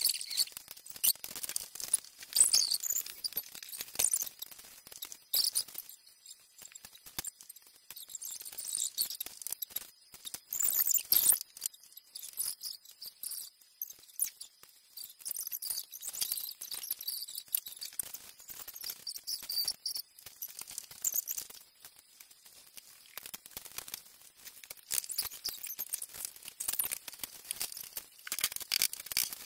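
Plastic LEGO pieces clicking and clattering as they are sorted on a hard tabletop and pressed together by hand, in irregular spells of small clicks with quieter gaps between.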